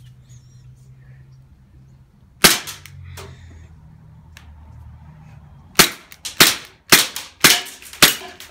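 Gas blowback airsoft pistol, a Smith & Wesson M&P9 running on green gas, firing with its metal slide cycling. One sharp pop about two and a half seconds in, then a quick string of about seven shots over the last three seconds.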